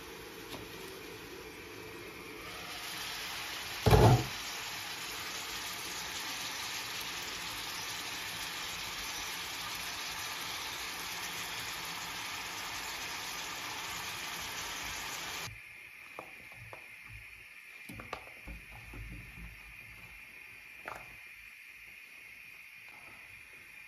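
Chopped vegetables sizzling in a frying pan, a steady hiss with one loud thump about four seconds in. The hiss drops off sharply a little past halfway, leaving a quieter stretch with a few light clicks and knocks.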